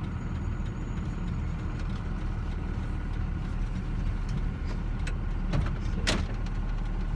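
Steady low engine and road rumble inside the cab of a moving pickup truck, with a couple of short clicks about five and six seconds in.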